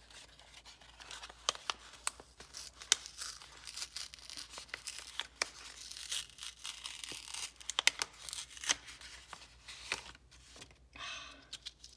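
Plastic packaging crinkling and tearing as a craft stamp is unwrapped, with scattered sharp crackles and a longer rustle near the end.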